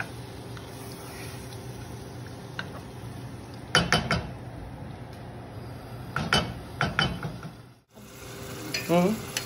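Diced raw chicken frying in oil in a nonstick saucepan, a steady sizzle, stirred with a wooden spoon that scrapes and knocks against the pan in two bursts, about four seconds in and again a couple of seconds later. The sizzle cuts out for a moment near the end.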